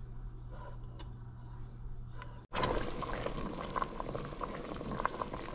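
Soup bubbling in a stainless steel pot while being stirred with a wooden spoon, coming back to a boil as the cornstarch thickens it. About halfway through the sound drops out for an instant and returns louder, with many small pops and spoon scrapes.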